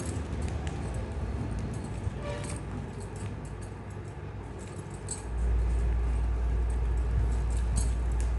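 Flat plastic basket-weaving strips clicking and rattling as they are handled and threaded through the weave. From about five seconds in, a loud low rumble joins and becomes the loudest sound.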